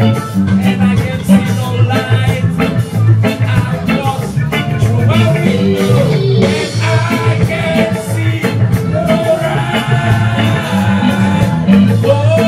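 Live reggae band playing: electric guitars, keyboard and drum kit over a steady beat and a strong bass line, with a lead singer's vocals.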